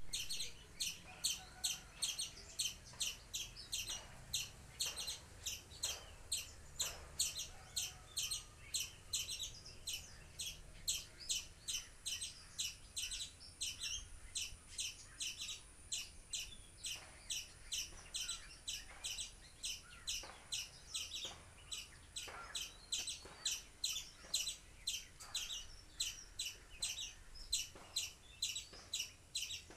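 A bird repeating a short, high chirp over and over, about three times a second.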